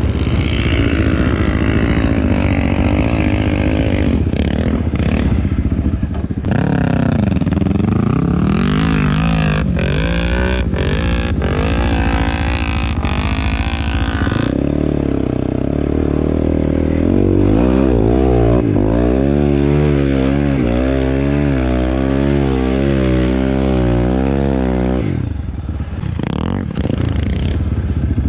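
Sport quad engine revving hard in the sand, its pitch rising and falling with the throttle, with quick on-off revs in the second half. The revs drop off briefly near the end before picking up again.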